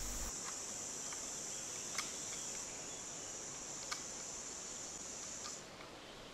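Steady high-pitched chirring of insects, which stops shortly before the end, with a few light clicks as the lever-action rifle is handled at the bench.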